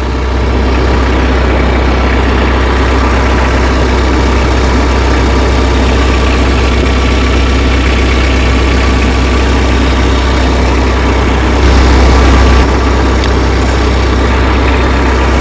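Tractor engine idling steadily, with a deep low hum; it grows briefly louder for about a second near twelve seconds in.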